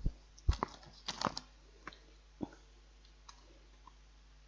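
Soft clicks and taps of someone eating a microwave noodle meal, a handful in the first two and a half seconds, then quiet.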